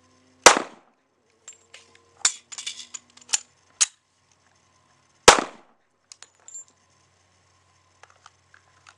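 Two pistol shots from a Springfield Armory XD, about five seconds apart, the double tap of a "two to the chest" drill. Lighter clicks and clatter come between them.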